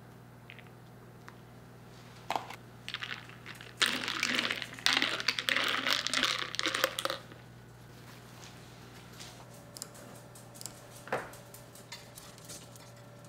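Ice cubes clinking and rattling in a paper cup as an iced latte is stirred, a busy clatter lasting about three seconds, with a few lighter clicks before it.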